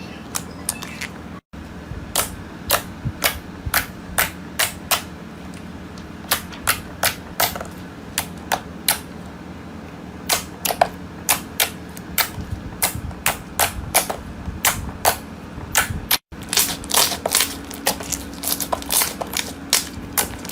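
Slime being pressed and worked by hand, giving off a string of sharp, irregular pops and clicks, about two or three a second, as trapped air bursts.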